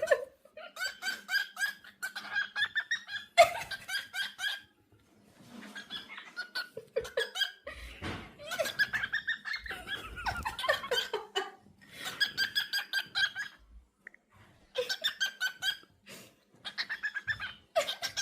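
Cockatiel chattering: quick runs of chirps in bursts of a second or two, with short pauses between.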